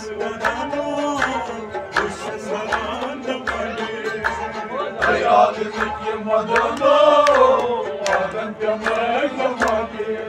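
Kashmiri Sufi devotional song: male voices singing over a harmonium, with a hand drum keeping a steady beat of about two strokes a second.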